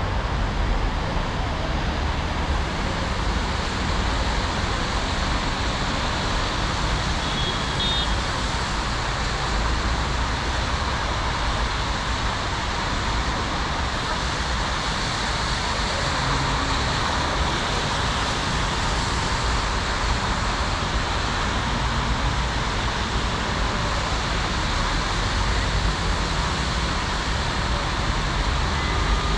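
Steady road traffic noise: an even hiss of passing cars over a low rumble, with no sudden loud crack standing out.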